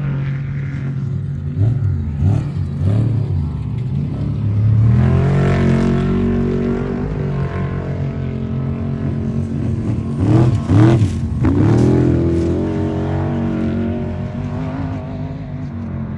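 Off-road race truck engines running steadily and revving, the pitch sweeping up and down several times; the loudest revs come about ten to eleven seconds in.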